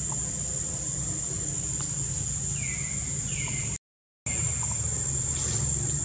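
Steady high-pitched drone of insects, with a few short chirps that sweep downward. The sound drops out completely for about half a second around four seconds in.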